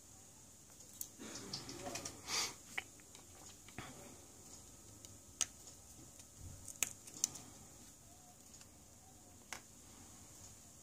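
Light handling noises of a disassembled smartphone: a short rustle about two seconds in, then scattered small sharp clicks as fingers move the phone's frame and flex cable.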